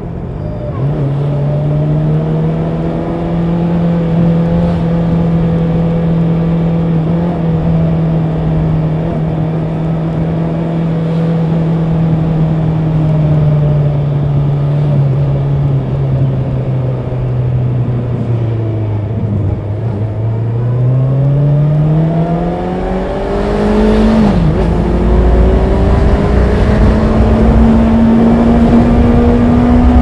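Honda CB650R's inline-four engine under way. It picks up revs about a second in and holds a steady pitch, then eases off slowly. Around three-quarters through it revs up with rising pitch, gives a quick dip like an upshift, and climbs again until it drops off near the end.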